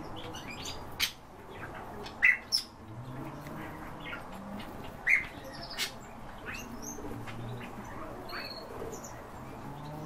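Many small cage birds chirping and calling over one another, with a few loud, sharp calls standing out.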